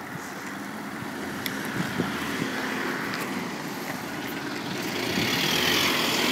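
Fire engine's engine running at the roadside on a wet street, with vehicle noise and a tyre-like hiss growing steadily louder toward the end.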